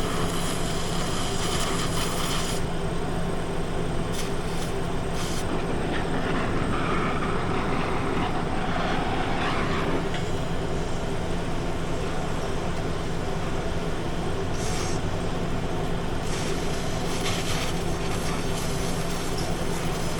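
Oxy-fuel cutting torch running steadily, with a continuous hiss as it washes leftover metal off a steel car rim, while its oxygen supply runs low. The high part of the hiss thins out for a long stretch in the middle, then comes back.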